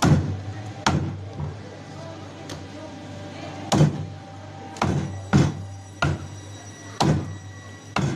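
Heavy cleaver chopping through a snapper and striking a wooden chopping block: about seven sharp chops, unevenly spaced, two of them close together around the middle.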